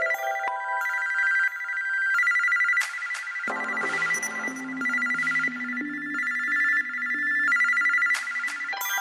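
An LG Fathom ringtone playing through the phone's speaker: an electronic melody over a steady high two-note warble. Lower bass notes come in about three and a half seconds in.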